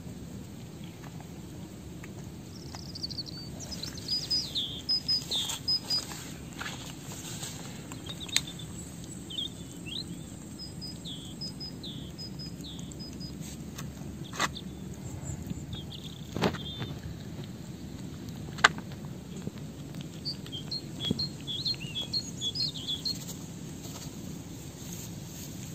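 Small birds chirping in clusters of quick high notes over a steady low background rumble, with a few sharp clicks scattered through, the loudest about three-quarters of the way in.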